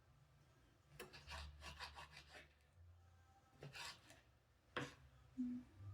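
Knife sawing through raw boneless chicken thighs on a cutting board, cutting them into inch cubes, in a few short scraping strokes.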